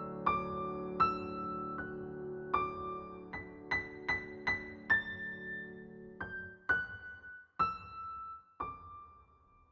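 Background piano music: a slow melody of single struck notes over a held low chord. The chord fades out about two-thirds of the way through, and the phrase ends on a long held note.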